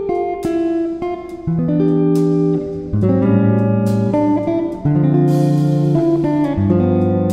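Background music: a guitar tune over light percussion.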